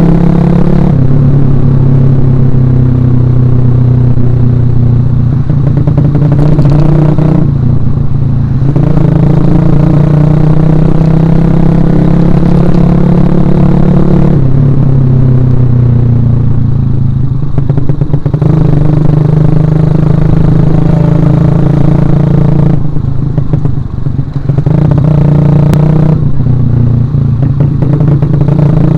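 Suzuki Shogun Axelo R single-cylinder four-stroke motorcycle engine running under way, its note dropping and picking up again several times as the throttle is eased off and reopened.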